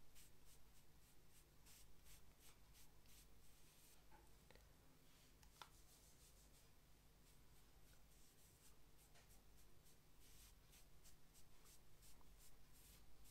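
Faint, soft rubbing strokes of a velvet powder-foundation applicator swept over facial skin, a few strokes a second, over a low room hum.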